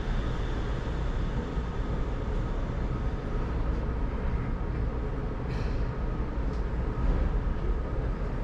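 Shonan Monorail suspended, rubber-tyred car running at speed: a steady low rumble with a faint steady whine, and a brief click about five and a half seconds in.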